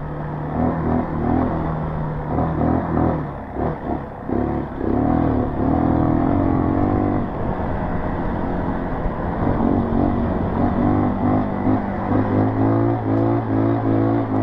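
Dirt bike engine revving up and down as the throttle is worked over a rough trail. It eases off briefly about four seconds in and again a little past the middle, then pulls steadily again.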